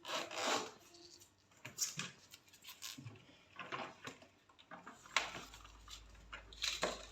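Irregular handling noises of a new suitcase: scattered light taps, clicks and rustles.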